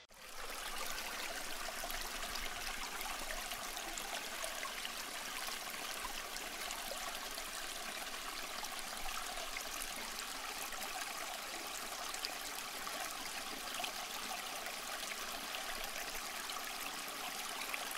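Water running in a saltwater reef aquarium: a steady, even trickling hiss with no low rumble.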